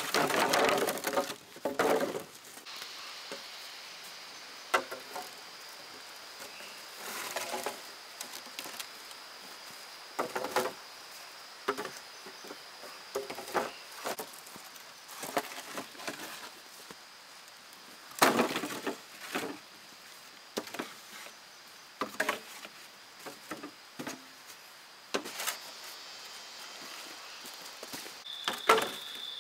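Irregular knocks and cracks of wood being struck or split, in separate bursts every few seconds, the loudest at the start and about eighteen seconds in. A steady high whine comes in about three seconds in, with a second, lower one near the end.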